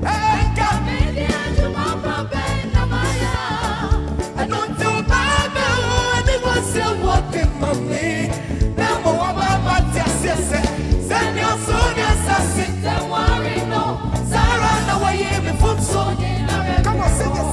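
Live gospel music with singing, the vocal line wavering over a steady beat.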